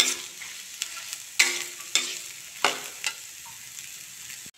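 Chopped onions sizzling in hot mustard oil in an iron kadhai, stirred with a steel spatula that scrapes and clinks against the pan several times. The sound drops out briefly near the end.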